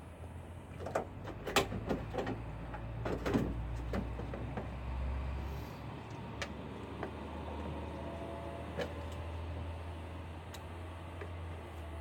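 Irregular light clicks and knocks of hands working a headlight bulb loose from a pickup truck's headlight housing, over a steady low hum.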